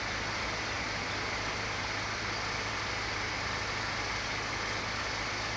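Steady mechanical running noise with a constant low hum underneath, unchanging in level.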